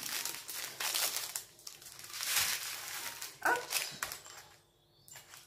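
Clear plastic bags of diamond-painting drills crinkling and rustling as they are handled and laid down. A short pitched squeak, like a yelp, comes about three and a half seconds in, and the handling dies away about a second later.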